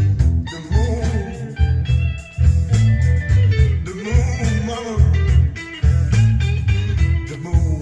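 Blues rock music with electric guitar and a heavy bass beat, played through a 1970s Starsonic SE-9000 stereo amplifier.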